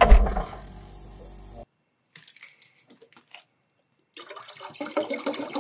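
A dull thump, then a short near-silent gap with a few faint clicks. About four seconds in, water starts pouring from a plastic bottle into a cooking pot, a steady splashing stream.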